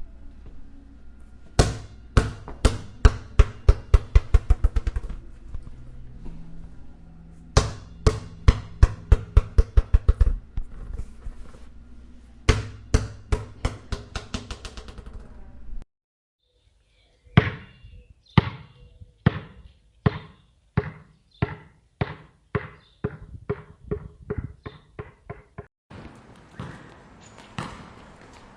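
A basketball dropped on a hard floor, bouncing to rest: each run of bounces comes faster and fainter until the ball settles. This happens three times in quick succession, then once more in a longer, slower run that starts with bounces about a second apart.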